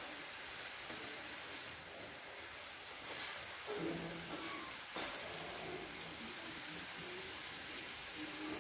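Chopped onion, garlic, peppers and tomato sizzling quietly in oil in a pan over a gas flame, stirred with a wooden spoon that knocks and scrapes the pan now and then.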